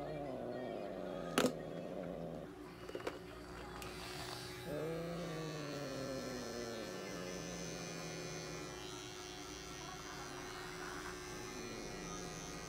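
Small electric pet clipper buzzing steadily from about four seconds in as it shaves the fur between a cat's paw pads, after a single sharp snip of a claw clipper about a second in. The cat lets out a long, low, falling meow about five seconds in.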